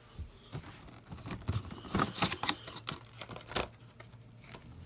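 A card collection box's packaging being handled and opened: crinkling and tearing with a string of light knocks and clicks, bunched from about one second in until near the end.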